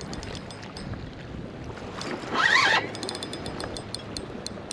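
Spinning reel being cranked against a hooked butterfly ray: runs of faint, rapid clicking from the reel over wind and lapping water, with a brief shout about two seconds in.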